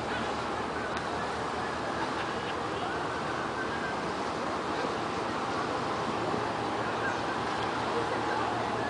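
Steady wash of wind and stirred-up sea water, with a faint murmur of distant voices.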